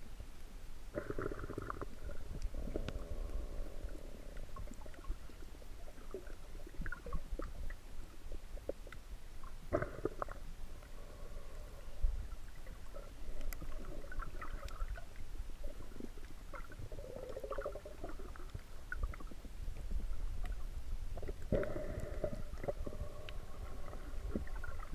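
Muffled low rumble of water heard through a camera held under water, with now and then louder washing sounds and a few sharp clicks, the loudest click about twelve seconds in.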